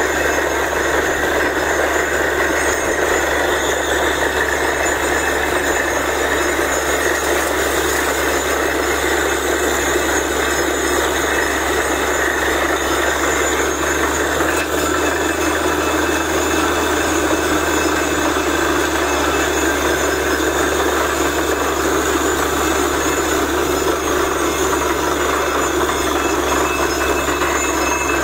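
Truck-mounted borewell drilling rig running steadily under load as it drills, with water and rock cuttings blowing up out of the bore around the drill pipe in a continuous loud rushing noise over the low hum of the rig's engine.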